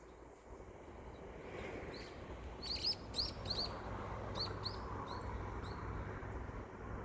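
A small bird chirping: a quick run of about ten short, high notes starting a few seconds in, over a low steady rumble.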